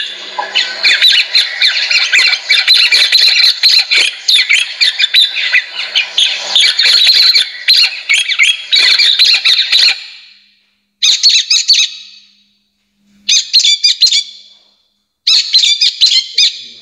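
Recorded bird calls played loud through a Zansong AT112 portable bird-lure speaker: dense, chattering, squawking calls for about ten seconds, then short bursts of calls with pauses between them.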